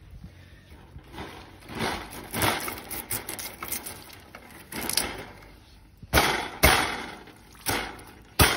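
Wire-mesh cage trap rattling and clanking as it is handled and set down for baiting, with a series of short rustling knocks and a few sharp clanks in the second half.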